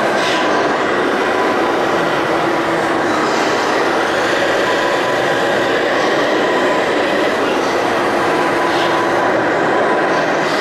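Steady mechanical din of radio-controlled model construction machines at work, with faint steady whines from their small electric motors and gearboxes over a dense running noise.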